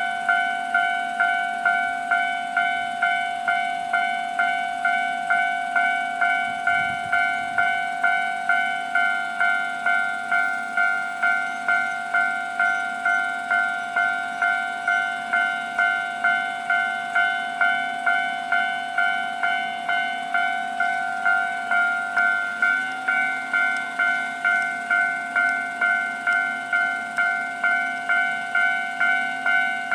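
Japanese railway level-crossing warning bell ringing steadily, a repeated clang of a little under two strikes a second, signalling that a train is approaching.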